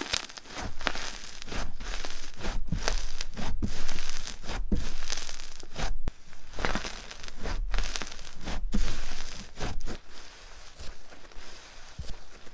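Slime being squeezed and pulled apart by hand, making a run of irregular crackling pops and crinkles that thin out near the end.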